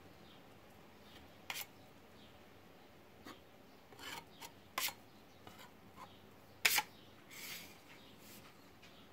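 A flat tool scraping along a cast plaster frame moulding in several short, irregularly spaced strokes, the loudest about two thirds of the way in.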